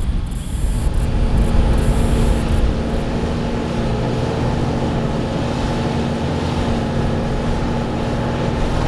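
Four-wheel-drive ute engine running steadily as it climbs a grassy dirt hill track, a constant drone over a low rumble.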